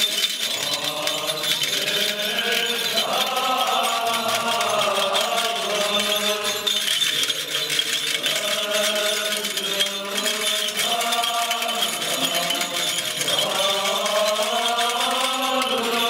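Liturgical chant sung by a choir of male voices: slow, sustained lines that swell and fade in long phrases.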